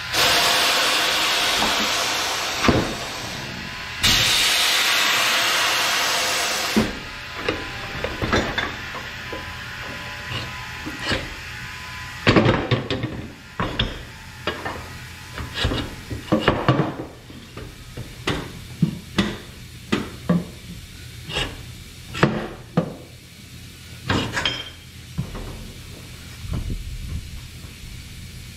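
A loud, steady air hiss in two stretches of about four and three seconds, then irregular knocks, clunks and rubbing as a stump grinder tire is shifted and turned on a manual tire changer, rubber and steel rim knocking against the machine.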